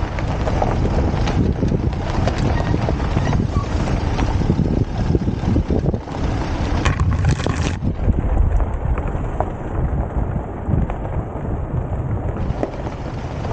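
Isuzu D-Max four-wheel drive driving along a rocky dirt track: a steady low rumble of engine and tyres on gravel, with wind buffeting the outside-mounted microphone.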